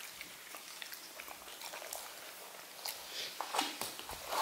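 English cocker spaniel mouthing and licking celery and strawberries on a plate: faint scattered wet clicks and licks, a little louder near the end.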